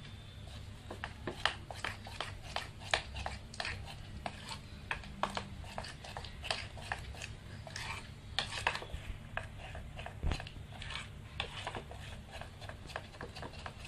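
Thin egg and gram-flour batter being stirred briskly in a stainless steel bowl: quick, irregular clicks and scrapes against the bowl with wet sloshing, over a low steady hum.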